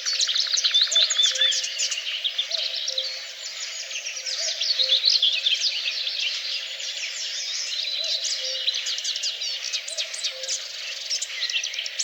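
A dense chorus of songbirds, many overlapping chirps, trills and whistles at once, with a faint low note repeating about once a second underneath.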